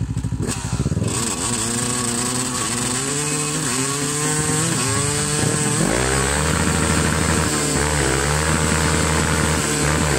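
Two-stroke Yamaha YZ250 dirt bike engine revved up and down repeatedly while spinning its rear tyre in a burnout. About six seconds in, the quad's engine (a Yamaha YFZ with a swapped-in Kawasaki Z650 twin) joins, running high and steadier as its rear wheels spin.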